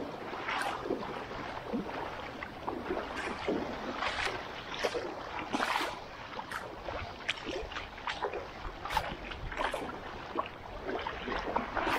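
Shallow river water splashing and sloshing as someone wades through it, in short irregular splashes about one or two a second over a steady low rush of moving water.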